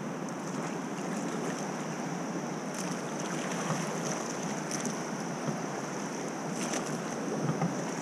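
Steady rush of river water around an inflatable raft approaching a rapid, with a few short splashes from about three seconds in.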